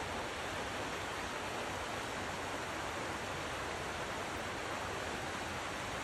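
River water rushing over rapids: a steady, even rush of flowing water.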